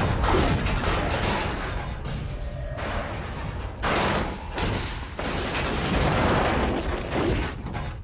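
Film sound effects of a large metal container crashing down and tumbling across dirt: dense crash and debris noise that swells again about four seconds in and about six seconds in.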